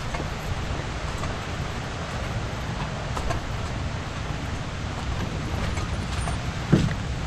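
Steady low rumble of wind buffeting the microphone while a canoe is carried overhead on a portage trail. Scattered soft knocks come from walking and from the carried canoe, with one louder thump near the end.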